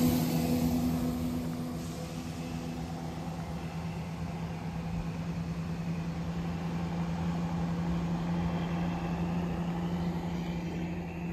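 Southern Class 171 Turbostar diesel multiple unit pulling away from the platform, its underfloor diesel engines giving a steady drone that drops in level over the first couple of seconds and then carries on as the train moves off.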